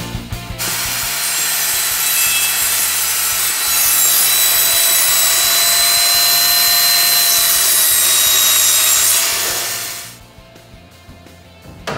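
Power saw cutting a white trim board: a loud, steady hiss of the blade through the wood with a thin whine, growing louder about four seconds in and stopping near the end, when background music takes over.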